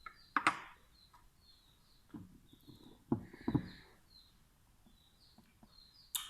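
Small birds chirp repeatedly in the background. Over them come a few short knocks and mouth noises from someone eating sliced garlic and honey off a spoon, the loudest about half a second in and about three and a half seconds in.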